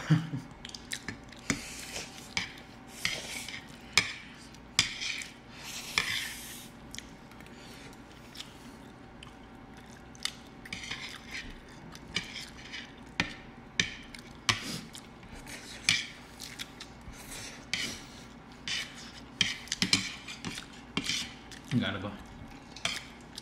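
Metal chopsticks clicking and tapping against plates at irregular intervals, with a few longer hissy stretches of noodles being slurped near the start: two people eating spicy noodles and fried chicken.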